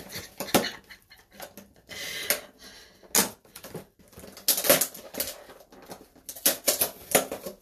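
Clear plastic clamshell food container crackling and clicking as it is handled and pried open, in irregular bursts of sharp crinkles.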